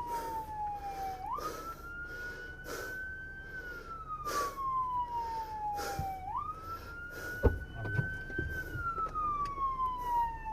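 Police car siren wailing, its pitch sliding slowly down, then jumping back up, about every five seconds. A single sharp thump cuts through about three-quarters of the way in.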